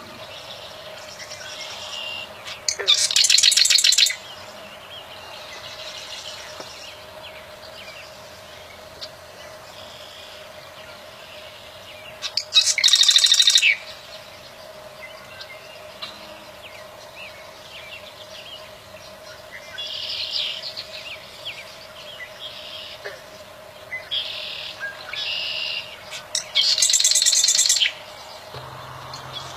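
Prinia singing in three loud bursts of rapid, chattering high notes, each lasting about a second and a half, with softer calls in between.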